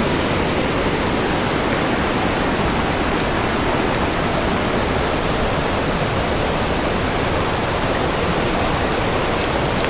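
Steady rush of river water and a nearby waterfall, an even hiss-like roar that does not change.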